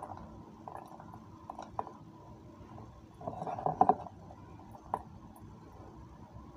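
Light handling sounds of stuffing mushroom caps by hand: scattered small clicks and taps of fingers and mushroom against a stainless steel bowl, with a louder brief rustle of scooping the filling about three and a half seconds in.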